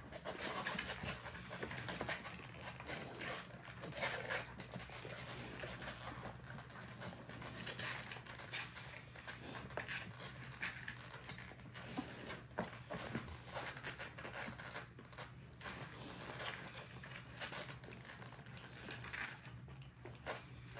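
Two-week-old American bully puppies making short, irregular breathy sounds, over a steady low hum.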